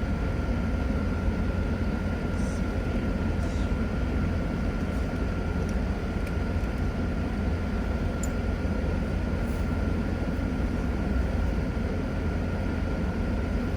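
Gasoline engine of lawn equipment running steadily, a thin high whine held over a low engine rumble, with a few faint ticks.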